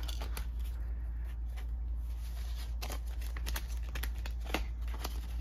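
Paper dollar bills and clear plastic binder pockets rustling, with a few soft clicks, as bills are slid into a cash-binder envelope and the binder pages are turned, over a steady low hum.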